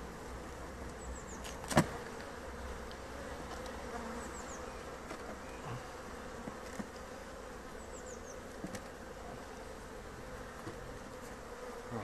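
Steady buzzing of honeybees from an opened hive, a calm colony, with one sharp knock about two seconds in.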